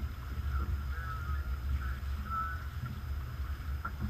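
A Hunter 310 sailboat under way, heard from the cockpit: a steady low rumble with light wind noise and faint short flickers higher up.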